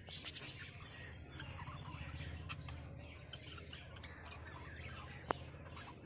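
A flock of budgerigars chirping and chattering, many short calls overlapping, over a low steady hum. A single sharp click about five seconds in.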